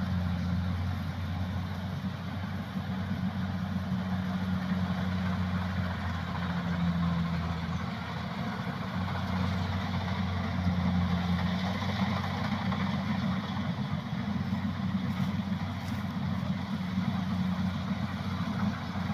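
Kubota rice combine harvester running steadily, a constant engine drone with a low hum that holds its pitch throughout.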